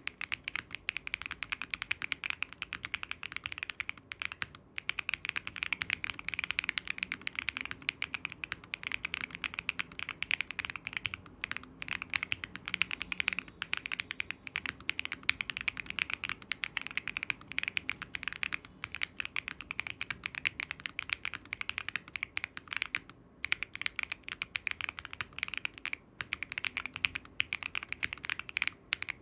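Continuous fast typing on a gasket-mounted QwertyKeys QK65 V2 mechanical keyboard with MMD Princess tactile switches, FR4 plate and GMK keycaps: a dense stream of key clacks with a few short pauses.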